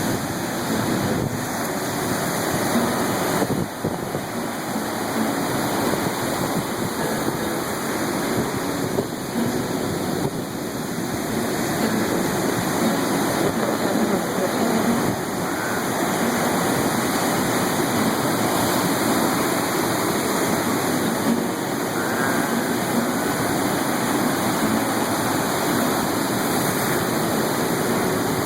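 Steady rushing of surf, waves breaking and washing without pause.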